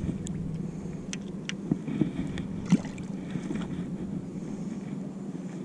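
Scattered small splashes and drips at the water's surface, a few short sharp ticks spread over a steady low hum.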